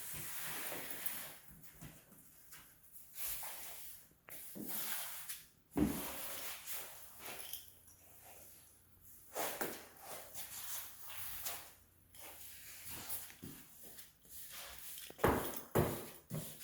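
Irregular swishing strokes of a brush or applicator spreading finish along the edges of a wood floor, with a sharp knock about six seconds in and another near the end.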